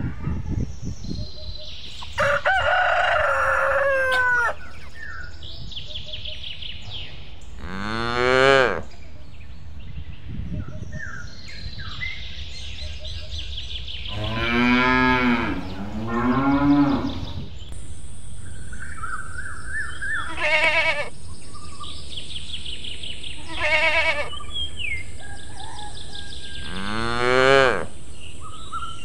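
Cattle mooing about six times, long drawn-out calls that slide down in pitch, over a steady rural background with birds chirping. A rooster crows about two seconds in.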